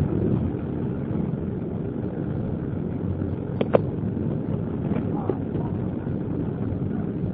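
Steady rumble of a passenger train coach running along the track, heard from inside the carriage, with a few sharp clicks about halfway through.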